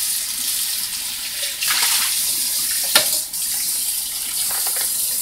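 Kitchen tap running steadily, with a couple of light knocks at about one and a half and three seconds in.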